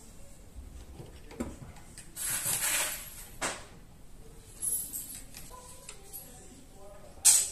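Metal parts of a Jericho 941 FB pistol frame being handled during disassembly: a short scraping slide a little over two seconds in, then a few small metallic clicks, the sharpest near the end.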